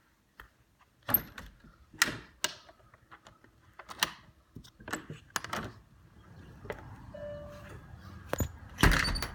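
Irregular knocks and clicks of someone walking and handling things, with a louder, longer noise near the end.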